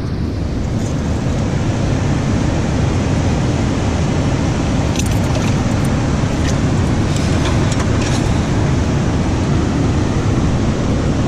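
Steady low rushing noise of river current and wind buffeting the microphone, with a few light clicks about halfway through.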